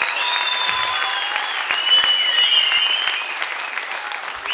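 Audience applauding, a dense steady clapping, with several long, shrill whistles over it.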